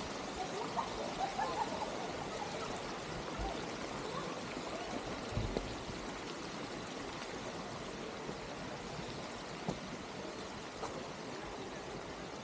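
Steady rush of running, splashing water from the water garden's fountains and pools, with a few faint short chirps in the first couple of seconds and a brief low thump about halfway through.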